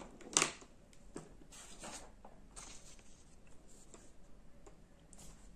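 Sheets of paper handled and shifted on a desk: a short sharp rustle about half a second in, then faint scattered rustles and ticks.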